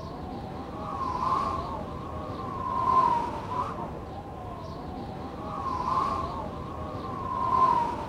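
A wailing siren: a high tone that rises and falls, swelling loudest about every one and a half to three seconds.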